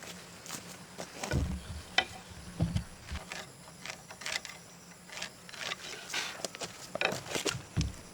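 Irregular light knocks, clicks and scrapes with three dull thumps, from wooden timber and hand tools being handled during work on timber posts.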